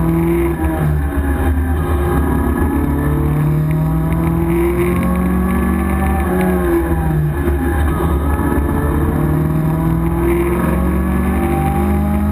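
Opel Manta GTE rally car's four-cylinder engine heard from inside the cabin under hard driving, its pitch climbing and then dropping again several times as it revs out and falls back between gears and corners.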